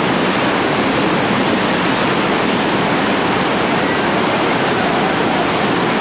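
Whitewater rapids rushing steadily: a continuous, even sound of churning river water with no breaks or distinct splashes.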